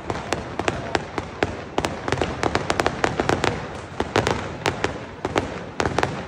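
Fireworks and firecrackers going off: a rapid, irregular string of sharp bangs and pops, several a second.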